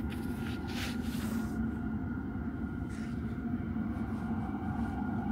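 Steady low hum of an underground metro station platform, with faint steady tones over it and a few soft brief noises in the first second or so.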